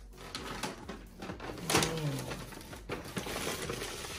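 Brown paper takeout bag rustling and crinkling as it is carried and handled, with a sharp knock about a second and a half in and a brief vocal sound just after it.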